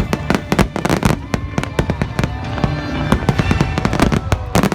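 Fireworks bursting in rapid succession, many sharp cracks and bangs close together, with the show's music playing underneath.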